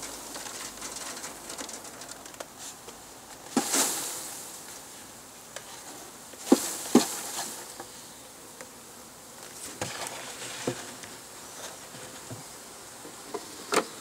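A swarm of honeybees buzzing steadily, broken by a few sharp wooden knocks as the bee box and a bee-covered frame are handled over the open hive; the loudest knocks come near four seconds in, a pair near seven seconds, and one just before the end.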